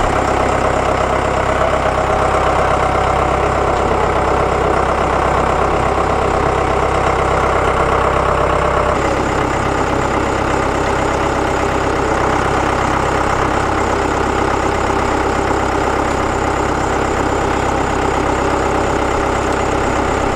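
John Deere 6420 tractor's diesel engine running steadily while its front loader hoists a heavy load; the engine note shifts slightly about nine seconds in.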